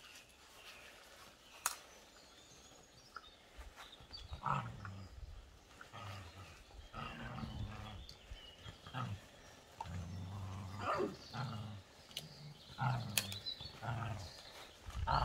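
Whippet puppies play-growling as they wrestle: a string of short, low growls starting about four seconds in, with a few sharp clicks.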